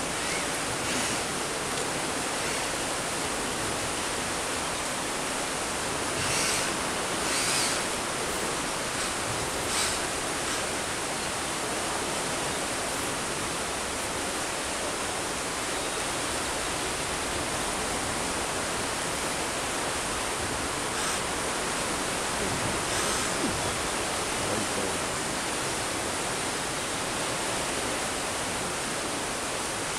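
Steady rushing of nearby flowing water, an even hiss with no pauses. A few short, slightly louder noises come through between about six and ten seconds in.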